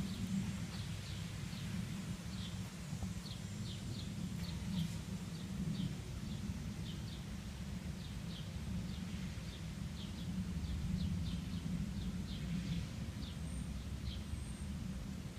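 Outdoor ambience: a steady low rumble, with a string of faint, short, high chirps at an uneven pace, roughly one or two a second.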